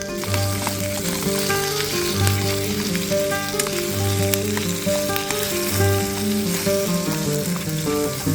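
Pre-cooked pork stomach (osori-gamtu) sizzling steadily as it fries in a pan, with background music over it.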